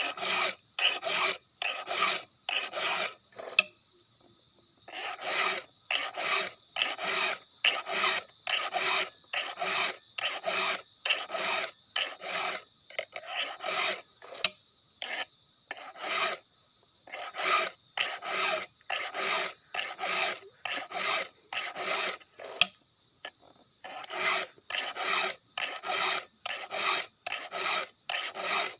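A file rasping across the cutters of a chainsaw chain, sharpening it for sawing planks. The strokes are rhythmic, about one and a half a second, with short pauses about four seconds in and about three quarters of the way through.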